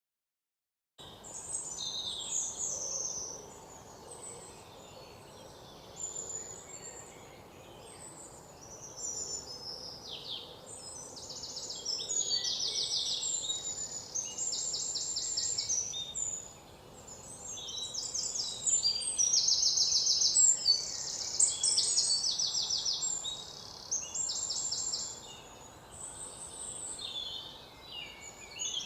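Birds singing, with many chirps and fast repeated trills, over a steady background hiss. It starts about a second in.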